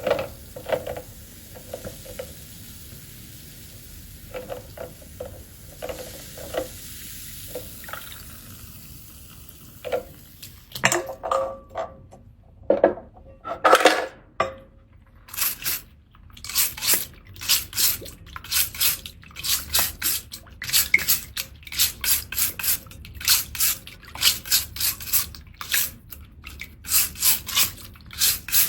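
Seashells being cleaned: light clinks and knocks of shell against a hard surface at first, then a seashell scrubbed hard in quick back-and-forth strokes, about two a second.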